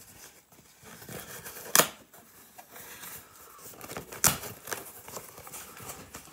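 Cardboard box being opened by hand, with fingers scraping and rustling along the cut cardboard. Two sharp clicks come about two and a half seconds apart.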